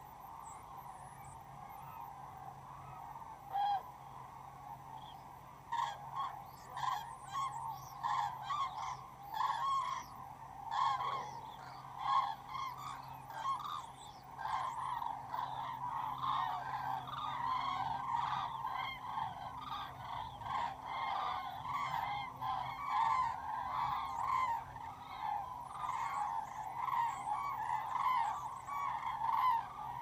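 A large flock of migrating birds calling in flight overhead: many overlapping calls, sparse at first and then a dense, continuous chorus from about six seconds in. A faint steady low hum lies underneath.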